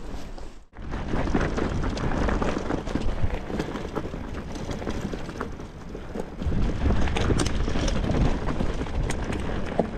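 Titanium hardtail mountain bike rolling fast down a dirt singletrack: tyre noise on the dirt with many small knocks and rattles over bumps. There is a brief dropout under a second in, and a heavier low rumble in the second half.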